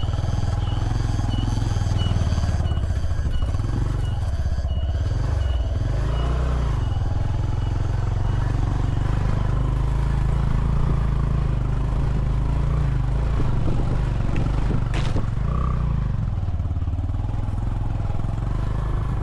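A vehicle engine runs with a steady low rumble that swells and dips while driving. A short high tick repeats about every 0.7 seconds for the first several seconds, and there is a single sharp click about 15 seconds in.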